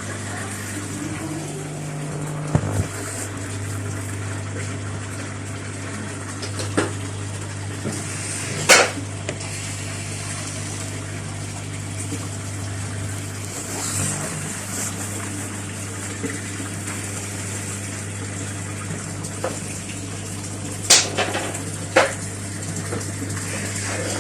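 Washing machine running with water moving inside, a steady low hum throughout, and a few sharp knocks or clicks, the loudest about nine seconds in and two more near the end.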